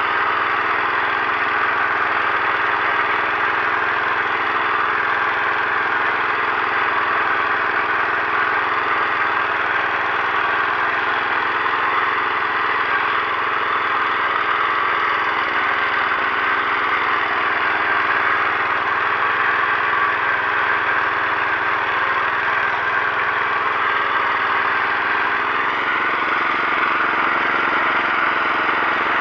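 Engine of an Agros heavy walk-behind tractor running steadily under load as it pulls a mounted plough through hard soil. The engine note drops slightly near the end.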